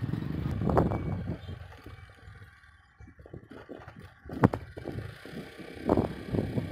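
Riding on a motorcycle: a low engine and wind rumble fades away, then a few sharp thumps and knocks follow, the loudest about four and a half seconds in, as the bike jolts over a bumpy dirt track.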